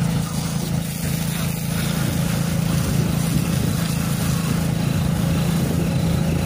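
Steady motor drone, like a small engine or pump running, under the hiss of a hose spraying water onto a truck.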